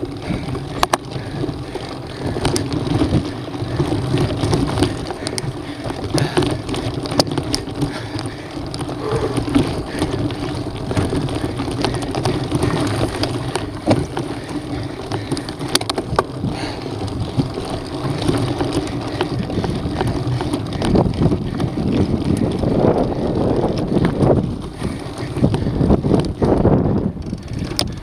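Mountain bike ridden along a dirt trail, heard from a camera on the rider: wind rushing over the microphone and tyres rolling on dirt, with frequent sharp clicks and knocks from the bike over bumps. It gets rougher and louder in the last several seconds.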